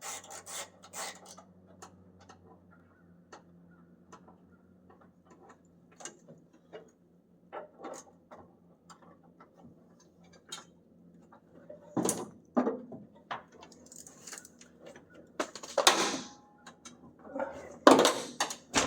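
Hand tools and loose metal parts clinking, scraping and knocking inside a stripped truck cab, quiet and sparse at first, with a few louder clanks and clatters in the second half. A faint steady low hum runs under the first half.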